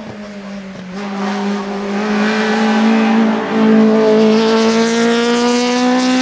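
Small racing hatchback's engine at high revs, accelerating hard up a hillclimb course. The pitch climbs steadily as it pulls through one gear, and the sound grows louder over the first few seconds.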